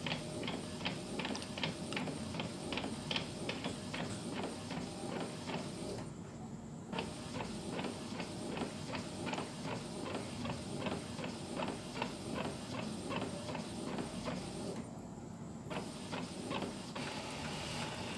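Epson L360 inkjet printer printing a test page, its print-head carriage shuttling back and forth with regular ticks, about two or three a second, and pausing briefly twice.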